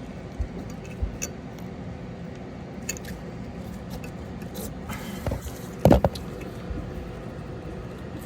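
Scattered small clicks and scrapes of a new brake pad being handled and pushed into the caliper bracket until its clip anchors, with a sharper double knock about six seconds in.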